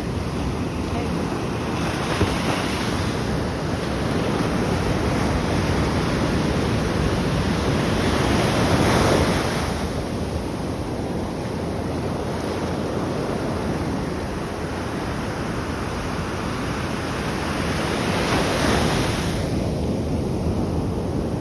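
Atlantic Ocean surf: waves washing in with a steady roar, swelling louder twice, about ten seconds apart, as waves break. Wind rumbles on the microphone underneath.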